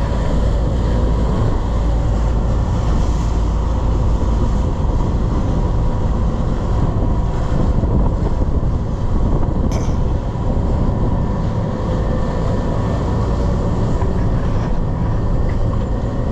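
Party boat's engines running steadily underway, a constant low drone with a faint steady hum, mixed with wind on the microphone and rushing water.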